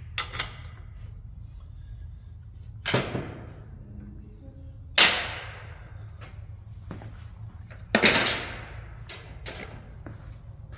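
Sharp metallic clanks and knocks from tools and brake parts being handled during rear brake work. There are about seven separate hits. The loudest comes about five seconds in and rings out for about a second, and a quick cluster follows near the eight-second mark.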